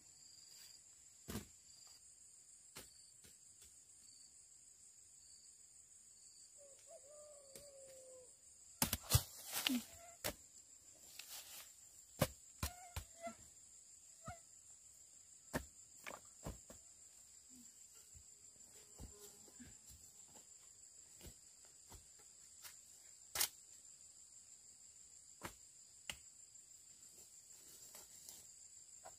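Steady high-pitched insect chirring, of the cricket kind, with scattered knocks and clicks; the loudest is a cluster of sharp knocks about nine to ten seconds in.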